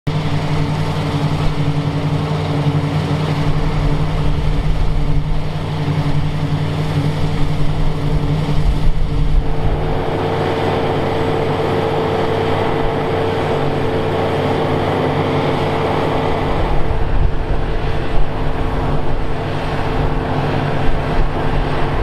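Claas combine harvester running while harvesting: a steady engine hum under the noise of the threshing and straw-spreading gear, shifting in tone about ten seconds in.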